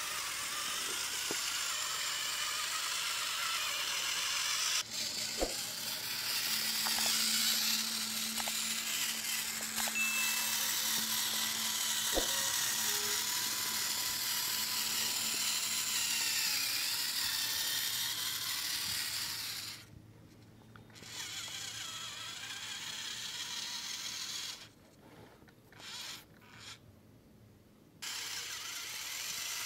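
Small electric motor and plastic gearbox of a radio-controlled model tractor whirring as it drives through sand, cutting out briefly twice in the last third.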